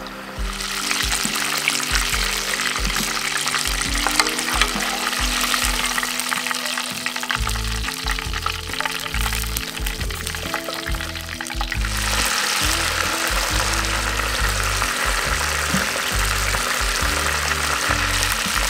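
Crocodile goujons deep-frying in canola oil in a pot, a dense, steady sizzle that eases a little about halfway through and then picks up again.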